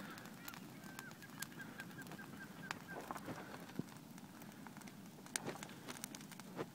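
Wood fire crackling, with scattered sharp snaps and pops as a freshly added log catches. About a second in, a bird gives a quick run of eight or nine short, high chirps lasting about two seconds.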